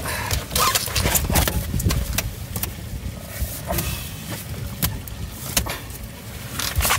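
Scattered knocks, clicks and rattles of fishing gear and a landed walleye being handled in a boat, most of them in the first two seconds and a sharp pair near the end, over a steady low rumble.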